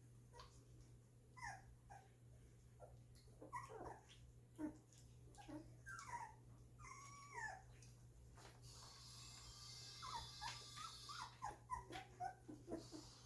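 Two-week-old golden retriever puppies whimpering and squeaking: many short, faint cries that slide up and down in pitch, over a steady low hum.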